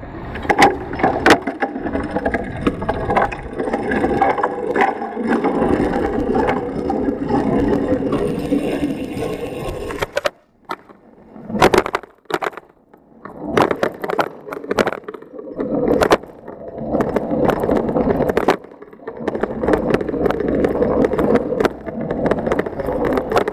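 A bicycle rattling as it rolls over pavement, picked up by a camera mounted on its handlebars, with sharp knocks from bumps. The noise drops out briefly about ten seconds in, then comes and goes in bursts.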